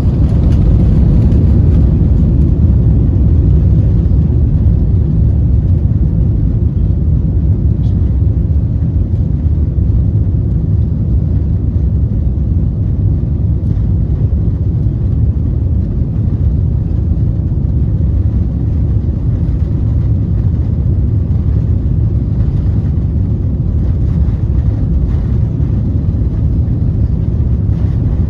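Airliner engines and airflow heard from inside the passenger cabin during takeoff: a loud, steady, deep rumble.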